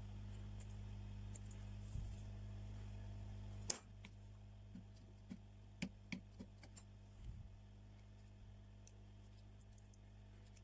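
Small tools clicking and tapping against phone parts during a repair, over a steady low hum. A little over three and a half seconds in, a sharp click comes and the hum drops to a lower level; scattered light clicks follow.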